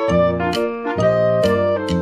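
Background music with a steady beat of about two strikes a second under a pitched tune.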